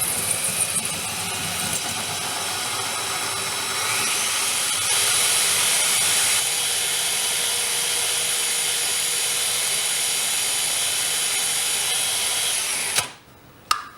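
Battery-operated drill with a 1/4-inch diamond bit running and grinding into glass held under shallow water. Its whine picks up speed about four seconds in, runs steady, and stops suddenly about a second before the end.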